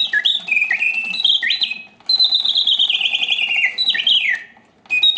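Bontems mechanical singing bird cage playing: its bellows-driven whistle sings automaton birdsong in loud whistled phrases of rising and falling glides and trills, with a long descending warble in the middle, broken by a brief pause about two seconds in and another near the end.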